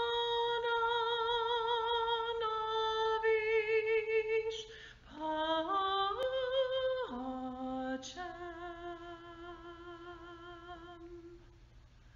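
A woman singing solo without accompaniment, holding long notes with a wide vibrato. In the middle she climbs quickly through a run of short notes, and her last long note fades away near the end.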